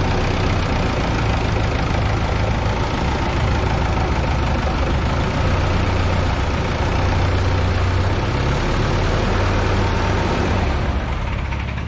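1969 Minneapolis-Moline U302 tractor's diesel engine running steadily at a low speed, getting a little quieter near the end.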